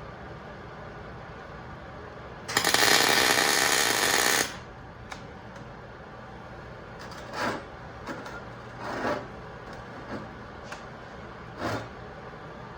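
Miller 140 MIG welder laying a bead, an even, loud crackle lasting about two seconds. A handful of much shorter, softer bursts follow in the second half.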